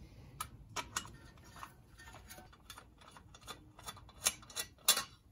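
Ratchet with a 10 mm socket clicking as a bracket screw is backed out: a run of light, uneven clicks, with two louder metallic clicks near the end.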